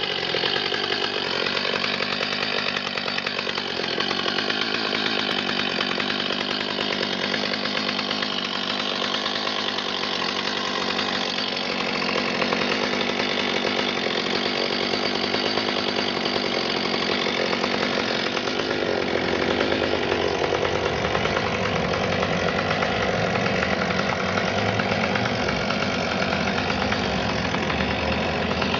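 Stihl MS 210 two-stroke chainsaw running without a break, cutting into a log at the start.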